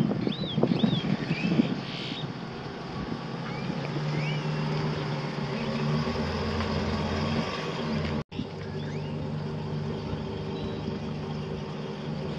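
Ford E350 Super Duty's 6.8-litre gasoline V10 running steadily at idle, after a few irregular knocks in the first two seconds. Birds chirp now and then.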